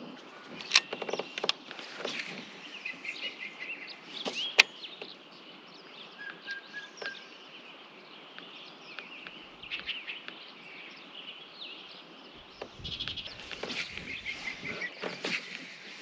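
Small birds chirping and twittering in short, repeated calls, with a few sharp clicks about a second in and again about four and a half seconds in, and a brief low rumble near the end.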